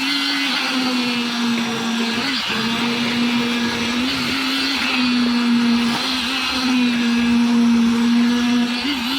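Concrete mixer machine running steadily: an engine drone that sags briefly under load a few times, over the rattle of concrete churning in the drum.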